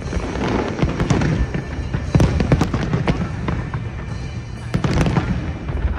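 Aerial fireworks shells bursting: a rapid run of bangs and crackles over a low rumble, with the heaviest clusters of bangs about two seconds in and again near five seconds.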